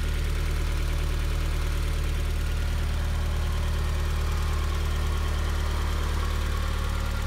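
1992 Mazda Miata's 1.6-litre inline-four running at a steady idle as it warms toward operating temperature, with the radiator cap off to bleed air from the freshly refilled cooling system.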